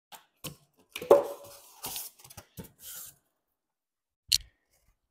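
Polystyrene foam packing being lifted out of a cardboard box: a run of short rubs and scrapes with a brief squeak about a second in, then a single knock near the end.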